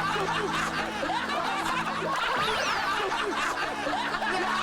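A group of people laughing and chuckling together over a steady low held tone, with a brief falling high-pitched tone about two and a half seconds in.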